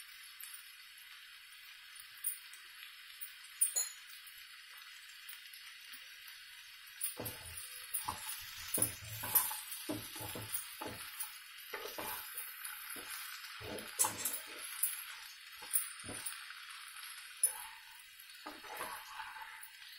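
Sliced ivy gourd and onions sizzling steadily in oil in a kadai. From about seven seconds in, a spatula scrapes and clinks against the pan in quick irregular strokes as the vegetables are stirred.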